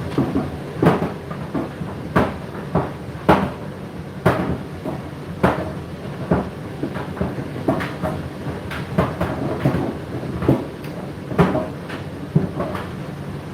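Laundry appliance drum turning with a steady run noise, the tumbling load knocking and clicking against the drum at uneven intervals, roughly once a second.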